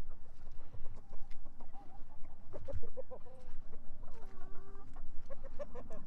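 Laying hens clucking around an egg mobile. A run of short clucks comes about two and a half seconds in, and a longer drawn-out call follows just after four seconds, with a few light knocks among them.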